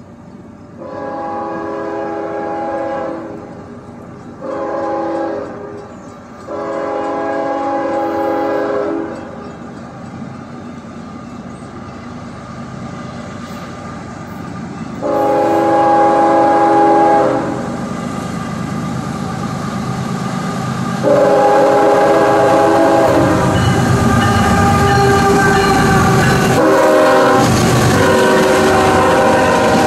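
CSX diesel locomotive's air horn sounding a series of long and short blasts as a freight train approaches. In the last third the rumble of the locomotives' engines and wheels grows loud as they pass close by, under a long horn blast that breaks briefly and resumes.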